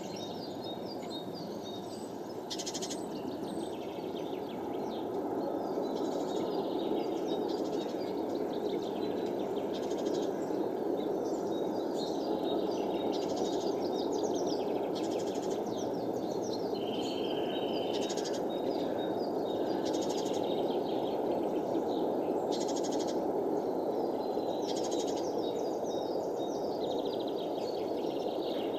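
Small songbirds calling and chirping again and again in short notes, with one longer held whistle partway through, over a steady low rushing background noise.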